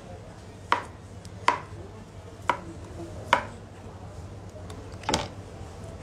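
Knife chopping a banana: five sharp knocks of the blade, about a second apart, with a longer pause before the last one.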